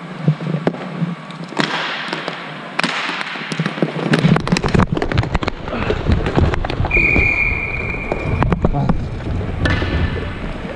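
Rapid volleys of paintball marker shots, many sharp pops in quick succession, over wind rumble on the microphone. A short steady beep sounds about seven seconds in.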